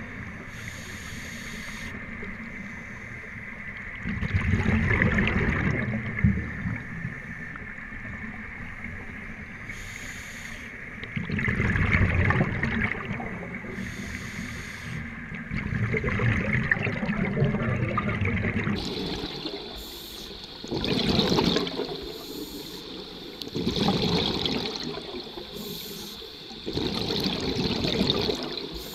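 Scuba breathing through a regulator underwater: exhaled air bubbles out in gurgling spells every few seconds, with quieter stretches between. About two-thirds of the way in, a faint steady high whine joins.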